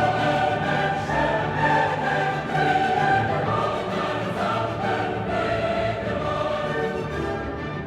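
Background music: a choir singing sustained chords over an orchestral backing.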